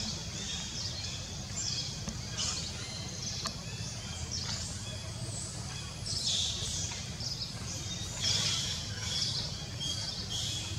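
Baby long-tailed macaque giving repeated high-pitched squeaks and cries, each falling in pitch, a second or so apart and strongest in a cluster past the middle, over a steady low rumble.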